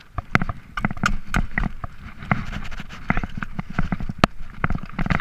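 A mountain bike clattering over a rocky trail: irregular sharp knocks and rattles as the tyres and frame hit loose stones, over a low rumble.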